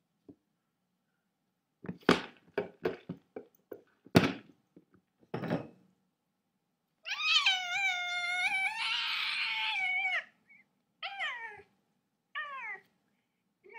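A run of knocks, then a cat giving one long wavering meow of about three seconds, followed by two short falling meows.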